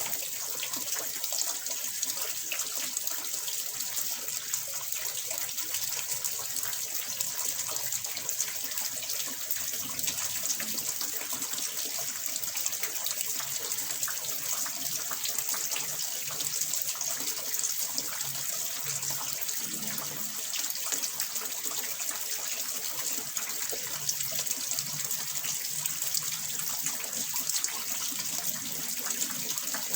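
Water pouring and splashing steadily into a fish pond, an unbroken running-water sound.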